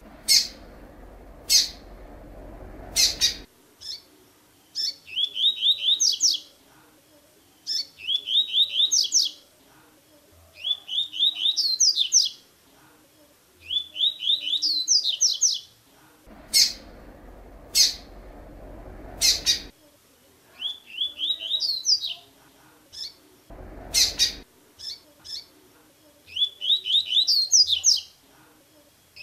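Double-collared seedeater (coleiro) singing its tui-tui song: a phrase of quick, rapidly repeated notes that climbs into higher notes, given again every few seconds. Sharp single call notes fall between some of the phrases.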